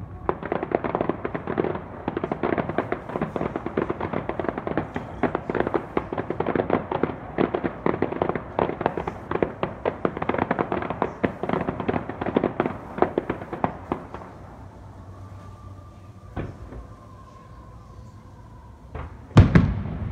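Distant fireworks display: a dense, rapid crackling of many small bursts for about fourteen seconds, then a lull broken by a single crack, and a loud boom near the end.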